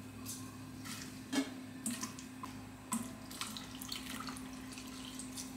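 Soaked tofu skin squeezed out by hand over a stainless steel bowl, water dripping and splashing into the bowl in a few short spatters.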